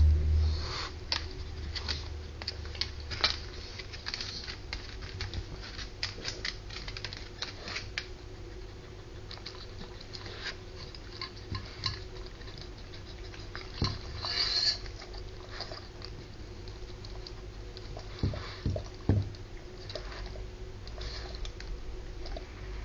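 Staffordshire bull terrier eating soft food from a stainless steel bowl: a steady run of quick, wet smacking clicks from its mouth, with a few duller knocks from about halfway through.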